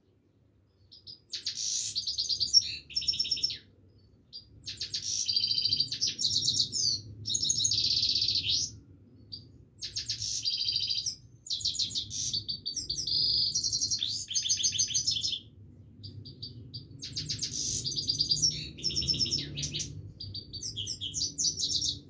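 Himalayan goldfinch (grey-crowned goldfinch) singing: rapid twittering, trilling song phrases of a few seconds each, broken by short pauses, starting about a second in.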